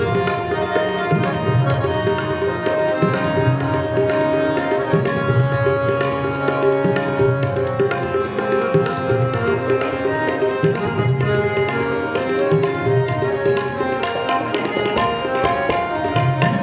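Two harmoniums and a pair of tabla playing an instrumental interlude of Sikh kirtan: steady, sustained reed chords over a running tabla rhythm of quick, sharp strokes.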